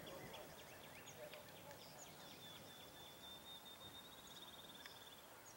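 Faint open-air quiet with small songbirds calling: scattered short high chirps and one thin high trill lasting about three seconds near the middle.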